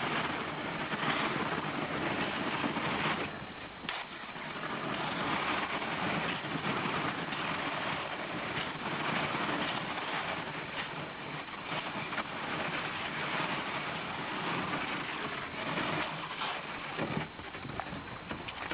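Thin skim ice crunching and crackling against a kayak hull as the boat pushes through a partly frozen pond, a continuous grinding crackle that eases briefly about four seconds in and has a few sharper cracks near the end.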